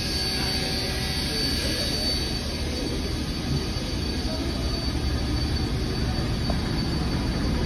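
Steam locomotive 3526 standing with steam up, hissing steadily over a low rumble, with a thin high whine that slowly fades away.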